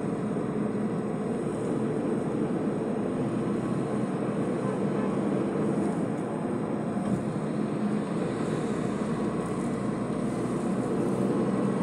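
Steady road and engine noise heard from inside a moving vehicle, a constant low rumble and hum.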